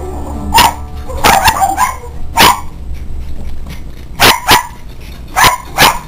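Shetland sheepdogs barking in short, sharp barks, in quick clusters with a lull about three to four seconds in.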